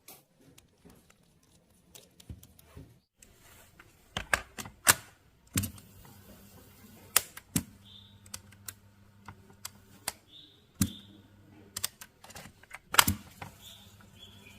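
Irregular sharp clicks and clunks of hands and tools working on a Hitachi cassette player. A low steady hum comes in about five seconds in.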